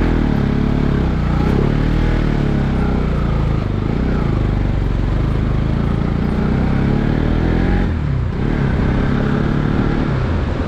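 Motorcycle engine running on the move, its pitch rising and falling with the throttle, easing off briefly about eight seconds in.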